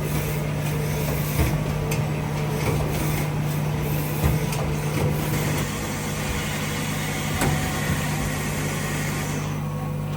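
A CMZ TX66-Y2 Quattro CNC turning center running, with a steady machine hum, a hiss and occasional sharp clicks. The high hiss falls away near the end while the hum continues.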